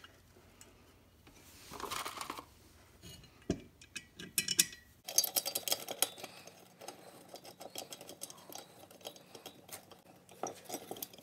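Steel mounting brackets and an LED work light being handled and fitted together by hand: scattered light metal clicks and clinks, busier from about five seconds in.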